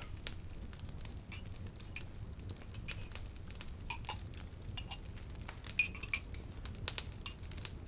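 Light, scattered clinks and taps of dishes, cutlery and glassware being handled, with a couple of short ringing pings.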